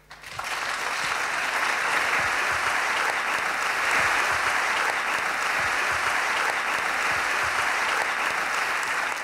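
Live audience applauding: dense, steady clapping that swells up within the first second and holds.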